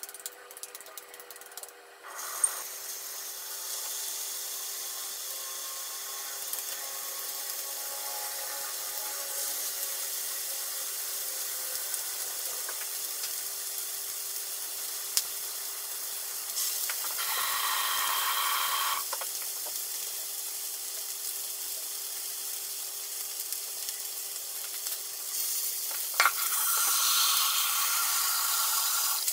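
Tsukune patties sizzling in oil in a frying pan: a steady hiss that starts about two seconds in, with a few louder stretches and occasional light clicks as patties are set down.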